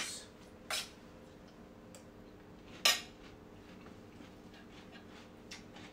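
A metal spoon clinks twice against a stainless steel mixing bowl while a chopped salad is tossed, once about a second in and again near three seconds. A steady low hum sits underneath.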